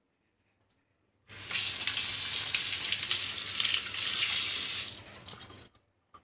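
Water running from a tap into a sink for about four seconds, starting a little over a second in and trailing off near the end.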